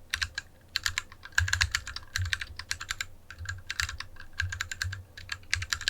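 Typing on a BM40 40% mechanical keyboard with unlubed Kailh Royal switches, in an aluminium case with DSA keycaps: a quick irregular run of keystroke clicks, each with a low thud under it. The sound is a bit boomy because there is no foam pad under the PCB.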